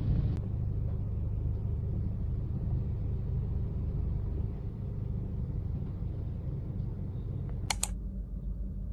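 Steady low rumble of a car heard from inside the cabin while driving, with two sharp clicks close together near the end.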